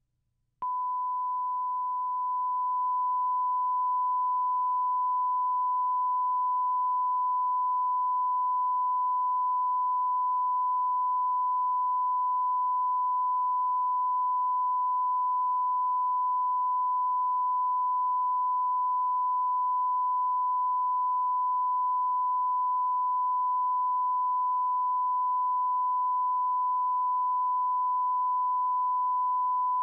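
Steady 1 kHz line-up reference tone played with the colour bars at the head of a broadcast videotape: one unchanging pure pitch that starts abruptly about half a second in.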